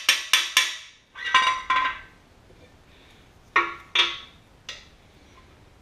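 Hammer tapping on a cam bearing installer bar, driving a new cam bearing into the Ford FE V8 block's cam bore: quick, ringing metal taps at the start and a short run of taps about a second in, then three separate metal clinks near the end as the tool is handled.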